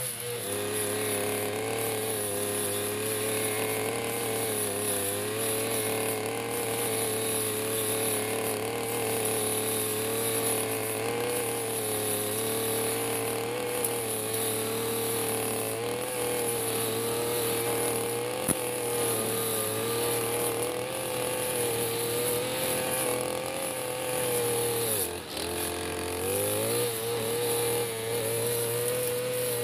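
Backpack brush cutter engine running at high revs as its metal blade cuts tough, dense grass, a steady high engine note. The revs rise at the start and dip briefly near the end before climbing back.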